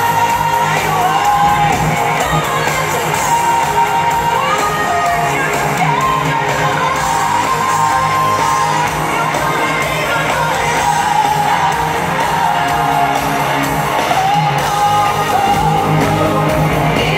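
Live pop music in a large arena: an amplified band with a sung melody over it, with crowd shouting and whooping, heard from the stands.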